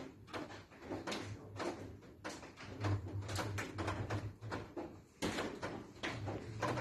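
Repeated harsh coughing in quick fits, each cough short and sharp, with a low hum pulsing on and off beneath.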